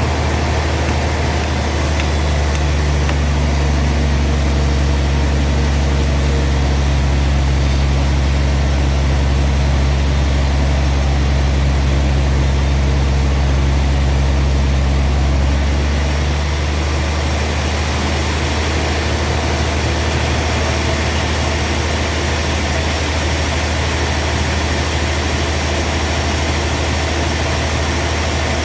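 Sawmill machinery running with a steady, loud low engine hum. About halfway through, the tone changes and the sound drops slightly in level, then carries on steadily.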